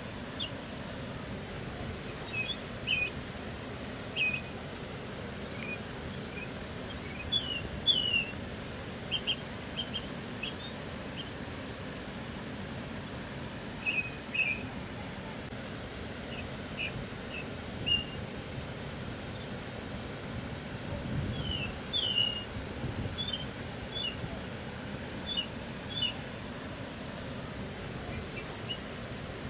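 Several songbirds calling: many short high chirps and a few short, fast trills, scattered irregularly, over a steady low background hiss.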